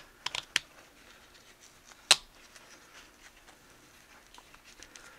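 Hands working a strap through the tight plastic strap slot of a Petzl Tikka XP headlamp: faint rustling, a few light clicks near the start and one sharp plastic click about two seconds in.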